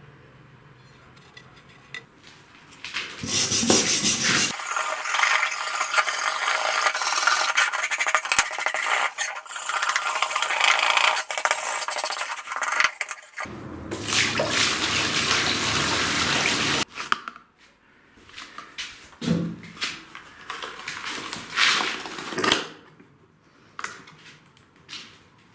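Hand wire brush scrubbing rust off an old steel knife blade, a steady run of rapid scratching strokes with a short break partway, then a few scattered knocks and clinks near the end.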